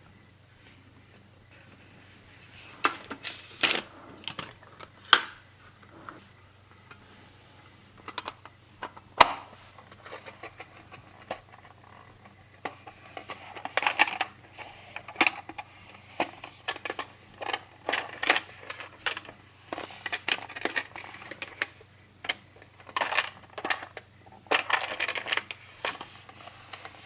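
Small hard objects handled on a tabletop: irregular clicks, taps and short rustles. A few loud sharp clicks come early, and the handling grows busier from about halfway.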